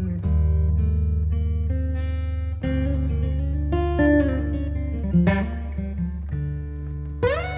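Background music led by a guitar picking notes over a steady low bass line, with a rising slide near the end.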